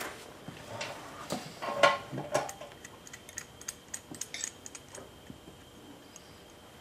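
Light metal clicks and knocks as a homemade water-cooled cylinder head is handled and seated on a Briggs & Stratton engine block. The loudest knock comes about two seconds in, followed by a run of small quick clicks.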